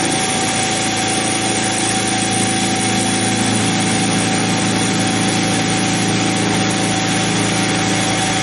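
Harbor Freight 44991 mini mill running steadily with a constant whine, its end mill cutting a radius in a metal link as the work is turned by hand on a rotary table. The low hum of the cut grows heavier about three and a half seconds in.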